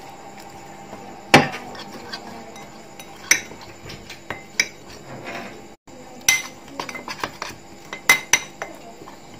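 Metal spoon stirring a thick spice paste in a glass bowl, clinking and scraping against the glass at irregular intervals, with the loudest knock about a second in.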